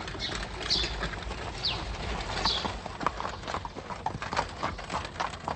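Horse hooves clip-clopping as a horse-drawn carriage moves along, with a few short high chirps over them.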